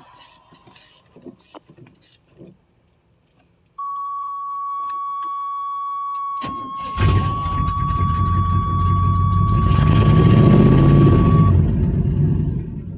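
A steady high warning-chime tone comes on about four seconds in; a couple of seconds later the starter cranks briefly and the 1985 Chevrolet Suburban's carbureted V8 fires and runs, revving up and settling, after the gas pedal has been pumped many times on a hard-starting Quadrajet carburetor. The chime tone stops near the end while the engine keeps running.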